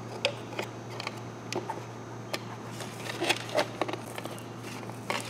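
Scattered plastic clicks, taps and scraping as a round speedometer gauge is handled and pushed into a 3D-printed plastic cluster housing, with a few sharper knocks about two and a half, three and a quarter, and five seconds in.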